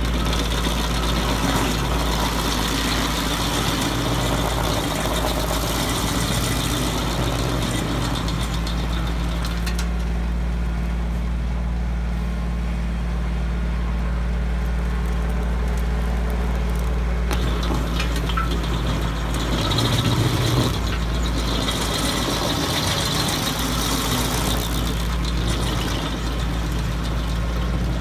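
Woodland Mills WG24 PTO stump grinder, driven off a compact tractor's PTO, its 24-inch cutting flywheel grinding into a stump and the soil around it over the tractor engine's steady drone under load. The grinding eases in the middle and picks up again near the end.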